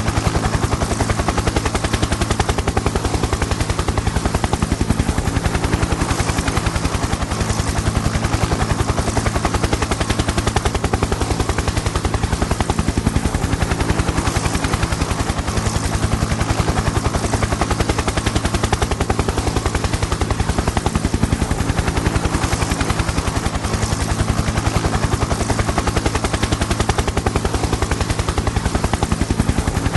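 Helicopter in flight: a rapid, even chop of the rotor blades over a steady low hum, holding level without change.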